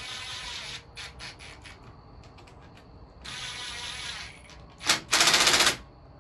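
Cordless impact driver running bolts down on a motorcycle's front fork in three short bursts. The last and loudest, about five seconds in, is a fast rattling hammer as the bolt tightens.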